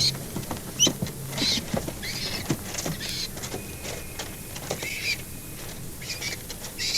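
Feral pigeons calling at the nest: a squab's repeated short, high-pitched calls, with a low adult coo in the first second and a half and some wing flapping.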